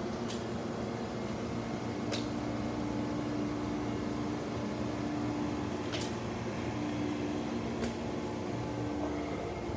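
Amtrak Amfleet passenger cars rolling slowly past at close range: a steady hum from the cars' air-conditioning and equipment, with a few single sharp clicks of wheels over the rail.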